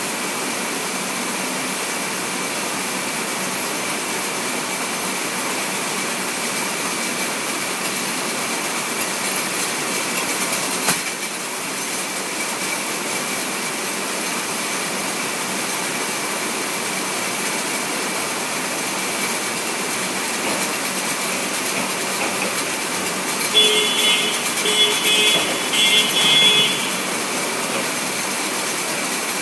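Warehouse conveyor machinery running with a steady mechanical noise and a faint high whine. About four-fifths of the way through, a pulsed electronic beeping sounds for about three seconds.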